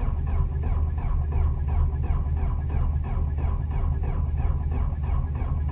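Starter cranking the cold diesel engine of a Cat 289C2 compact track loader, a steady, even, rapid churning rhythm that runs on without the engine catching. It is being cranked on jumper cables after preheating, and it sends out smoke while it turns over.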